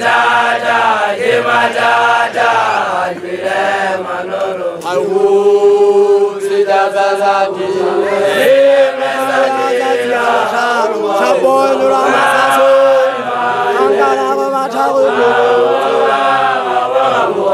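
Voices chanting a traditional song, with long held notes.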